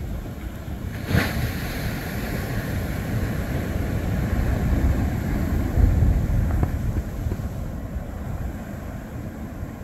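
Strong wind buffeting the microphone, with a constant low rumble of wind and surf and a swell in the gusts past the middle. A brief sharp knock comes about a second in.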